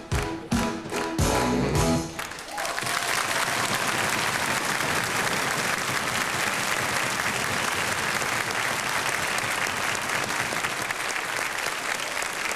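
A pop-rock band with guitar and keyboards plays the final hard beats of its song, stopping about two seconds in; a studio audience then applauds steadily.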